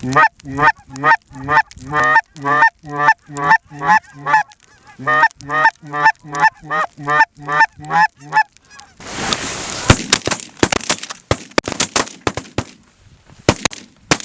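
A fast, regular string of snow goose calls, about three honks a second, stops about nine seconds in. A ragged volley of shotgun shots from several guns follows over about four seconds, over a rushing noise.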